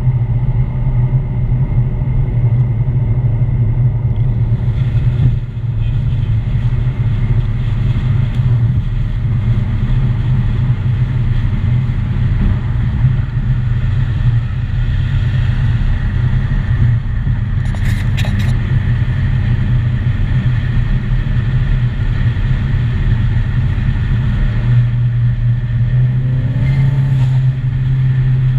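EcoBoost Mustang's 2.3-litre turbocharged four-cylinder engine running with a steady low drone. This is the car the owner filmed for an unexplained weird noise. A brief burst of sharp clicks comes about two-thirds of the way in.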